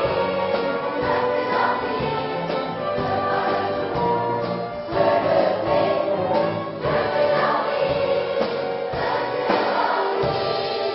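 Large children's choir singing with a small orchestra accompanying: strings, harp and keyboards.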